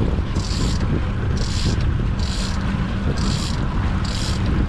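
Outboard motors running with a steady low rumble and wind buffeting the microphone, with a hissing rush that swells and fades about once a second.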